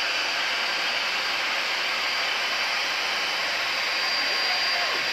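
Electric air pump running steadily, blowing air through its hose to inflate a vinyl inflatable pool: a constant whirring hiss with a faint high whine.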